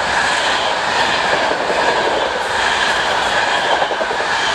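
Passenger train carriages passing close by at speed: a loud, steady rush of wheels on the rails and moving air.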